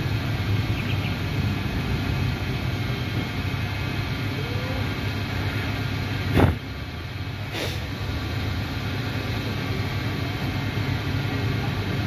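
Car engine running with a steady low rumble. A sharp knock about six seconds in is the loudest moment, with a fainter click about a second later.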